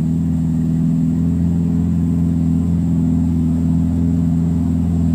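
Diesel engine of a small dump truck running steadily, its pitch holding even, as the truck crawls over a rutted, muddy dirt road laden with oil palm fruit.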